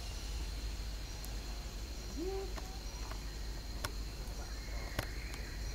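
Forest ambience: a steady high insect drone over a low rumble, with a short low call that rises and then holds about two seconds in, and two sharp clicks near the end.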